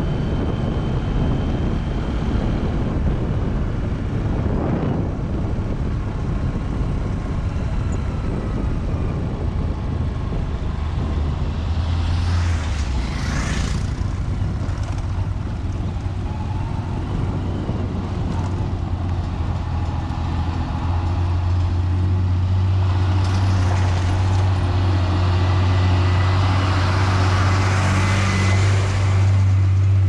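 Ride noise from a moving road vehicle: a steady low engine drone with wind and tyre rumble, and another vehicle passing close about 12 seconds in and again near the end.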